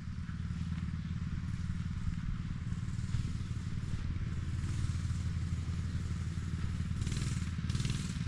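Small 212cc single-cylinder four-stroke engine of a mini bike running steadily, with a few short bursts of hiss near the end.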